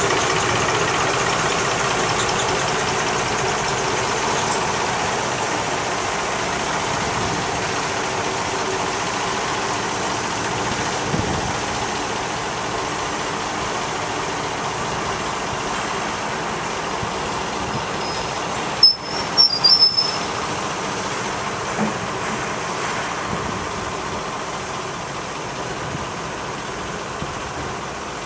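Class 07 diesel shunter's engine running steadily as it moves a coupled electric multiple unit, growing fainter as it draws away into the shed. A brief cluster of sharp high squeals and clicks about two-thirds of the way through.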